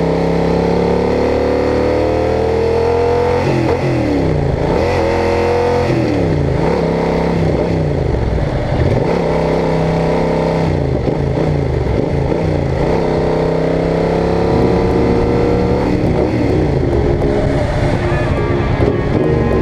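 Yamaha Super Tenere 1200's parallel-twin engine under way, its pitch climbing steadily for the first few seconds, then rising and falling again and again with throttle and gear changes.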